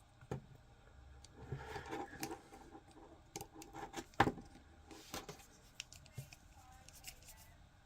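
Faint clicks and scrapes of 3D-printed plastic figure parts being handled and fitted together, with a sharper click about four seconds in.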